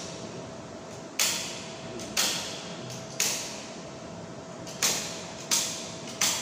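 Circuit breakers in an electrical panel being switched by hand: six sharp snapping clicks, about one a second, with a short pause after the third.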